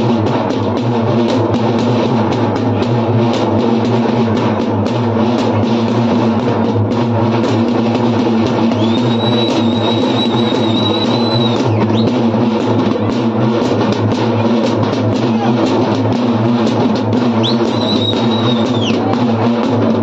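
Several large drums beaten by hand in a fast, steady dance rhythm. A shrill whistle is blown over them twice, about nine seconds in for roughly two and a half seconds and again near the end.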